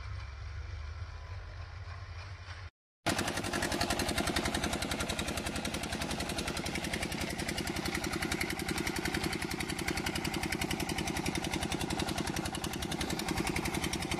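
A tractor engine drones steadily while the tractor cultivates a field. After a break about three seconds in, a louder engine runs with a fast, even beat, heard together with water gushing out of a tubewell's outlet pipe.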